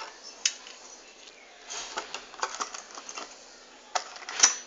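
Hands handling an AMD FX-6300 processor's retail packaging: irregular sharp clicks, taps and brief rustles, busiest in the middle, with the loudest click near the end.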